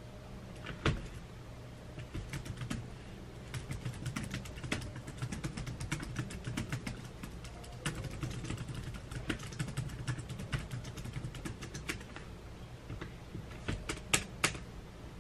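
Fast typing on a laptop keyboard: quick runs of key clicks with short pauses between them, and a few harder taps about a second in and near the end.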